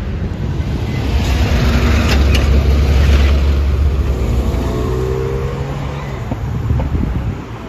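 Street traffic: a motor vehicle passes close by. Its engine rumble swells to a peak about three seconds in and then eases, with a short rising whine about five seconds in.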